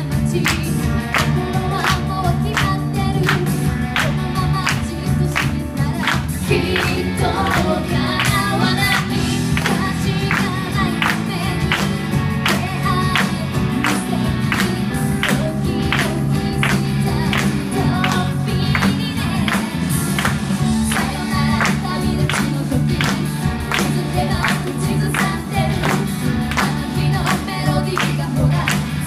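Upbeat J-pop song on a backing track with a steady drum beat, and a woman singing live into a handheld microphone.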